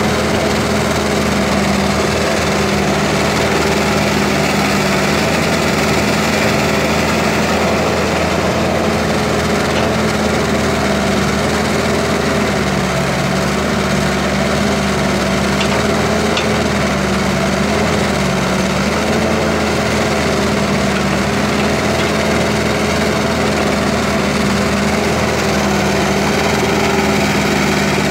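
Diesel engine of an excavator running steadily, its pitch wavering slightly up and down, with a couple of faint clicks in the middle.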